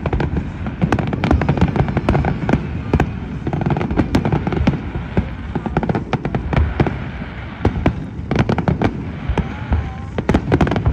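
Aerial fireworks shells bursting in quick succession, a dense, continuous run of bangs and crackles.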